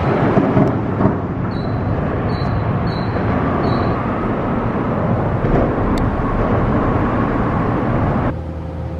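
Steady vehicle noise, a low rumble with an even rushing hiss, with four short high chirps between about one and a half and four seconds in. It cuts off abruptly near the end to a quieter steady hum.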